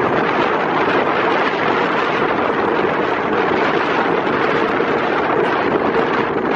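Loud, steady wind rushing and buffeting across a microphone that is travelling along a road.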